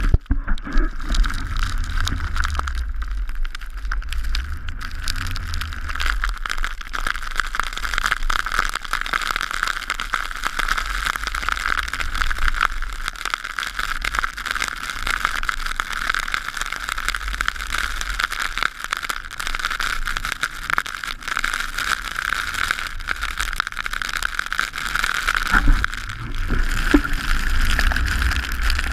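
Skis sliding over fresh snow while skiing downhill, a steady rushing noise mixed with wind on an action camera's microphone. The low rumble of the wind swells briefly a couple of times.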